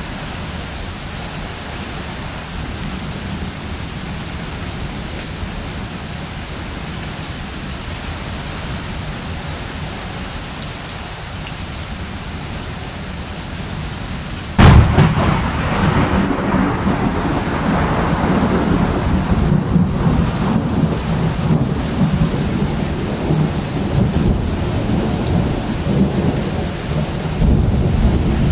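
Steady rain. About halfway through, a sudden loud thunderclap breaks in and rolls on as rumbling thunder over heavier rain, swelling again near the end.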